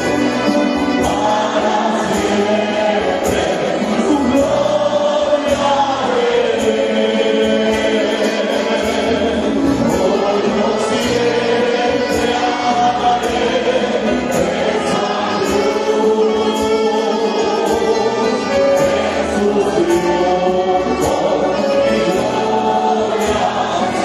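A large church congregation singing a hymn together, many voices in sustained sung lines, with instrumental accompaniment.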